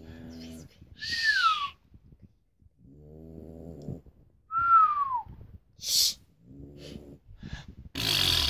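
Snoring from a sleeping dog and a man imitating it: rattly snores about every three seconds, with two whistling squeaks that slide down in pitch between them and a loud breathy snort near the end.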